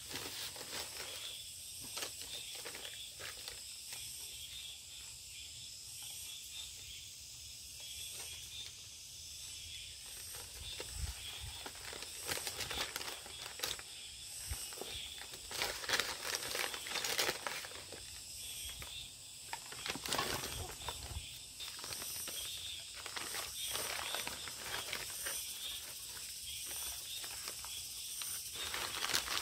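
Steady high chirring of insects, with intermittent rustling and crinkling from paper sacks being handled and scraping at a mesh sieve of potato starch, busiest about halfway through.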